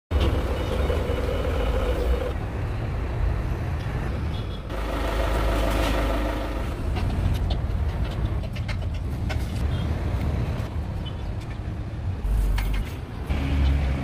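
A steady low mechanical rumble of an engine or machine running, changing abruptly several times, with a humming tone in the middle and a few scattered clicks.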